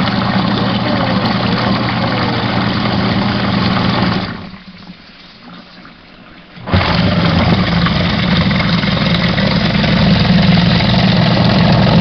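Portable electric washing machine running with a steady motor hum and churning noise. It cuts out about four seconds in and starts up again more than two seconds later.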